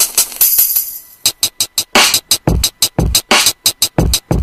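Gritty hip-hop drum samples from a Maschine drum kit playing: fast hi-hat ticks throughout, a hissy cymbal wash about half a second in, and several deep, booming kicks in the second half.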